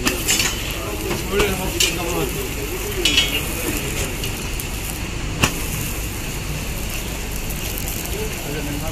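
Parathas sizzling in oil on a large flat metal griddle (tawa), with a few sharp clicks of a metal spatula and tongs against the griddle; the loudest click comes about five and a half seconds in.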